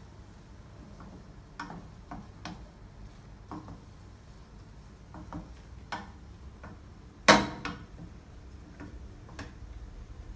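Wooden spatula stirring a thick curry in a pan, knocking against the pan's side in scattered light clicks, with one much louder knock about seven seconds in.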